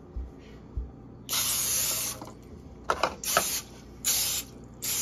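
Aerosol cooking spray hissing into a foil loaf pan to grease it: one burst of about a second, then three shorter bursts, with a couple of light clicks between them.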